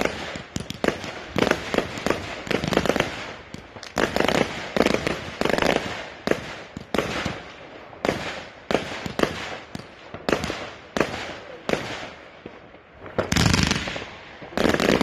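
Consumer fireworks firing in quick succession: shots launching and bursting in the air as a string of sharp bangs and crackles, several a second. Near the end there is a longer rush of noise as a ground item sprays sparks.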